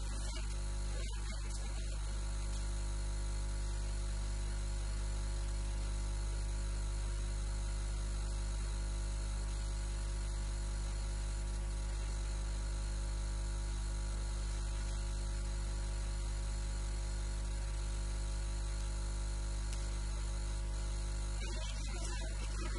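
Steady electrical mains hum and buzz: a low hum with a long ladder of evenly spaced overtones, unchanging in pitch and level.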